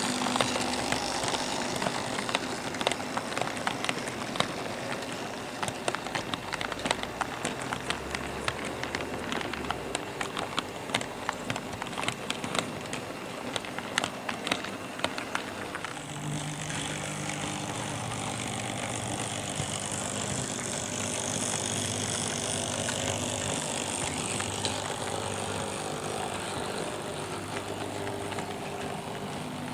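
Märklin SK 800 tinplate model train running on its track. For the first half there is a dense rattle of clicks from the wheels on the rails. After that it settles into a steadier hum and whirr.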